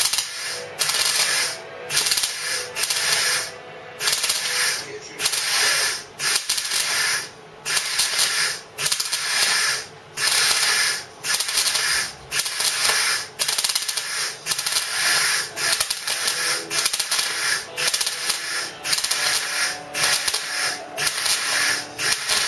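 Welder crackling in short bursts of about half a second to a second, roughly one a second, with brief pauses between. The bursts are blobs of weld being laid one after another to fill a wide gap in a car's steel bodywork.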